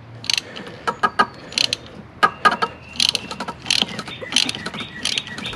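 Socket ratchet clicking in short irregular runs of quick clicks as a 24 mm socket loosens the oil filter housing cap on a 3.6L Pentastar V6.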